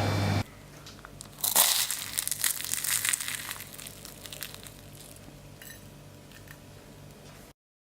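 Crisp crust of a double-baked almond croissant crunching and crackling as it breaks into shards: a dense burst of crackles starting about a second and a half in that thins out over a few seconds, with a few faint crackles later on.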